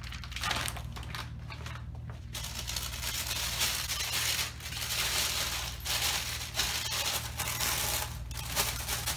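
A plastic oven cooking bag rustling and crinkling as a chuck roast is pushed down into it in a glass baking dish. The crinkling is light at first and gets denser and more continuous from about two seconds in.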